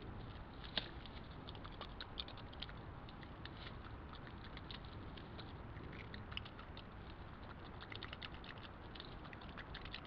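European badger chewing and crunching carrots and banana: a run of small, irregular clicks and crunches, one sharper click about a second in, over a steady hiss.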